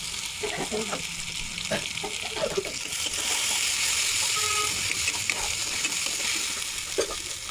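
Food sizzling in hot oil in a pan, the sizzle growing louder about three seconds in, with scattered knocks and scrapes of a spoon stirring.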